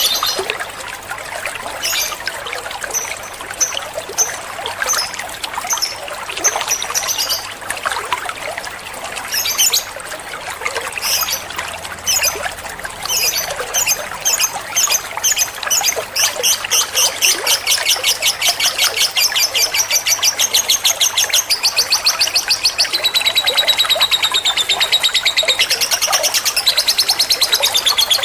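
Lovebird song: sharp high chirps in short runs, then from about halfway a long, fast rattling trill that keeps going to the end.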